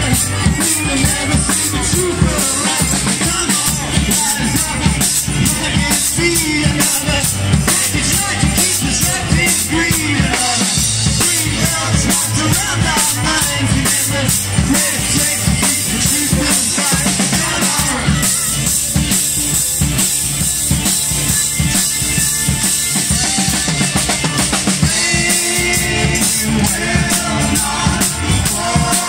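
Live band playing, with a drum kit keeping a steady beat under guitars and other melody instruments.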